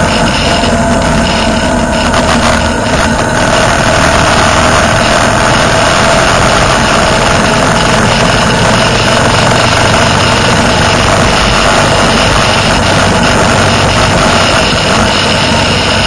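Motorcycle engine running steadily at highway cruising speed, mixed with road and wind noise from riding.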